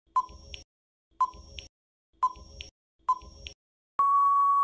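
Quiz countdown timer sound effect: a short beep once a second, four times, then a long steady beep as the timer runs out.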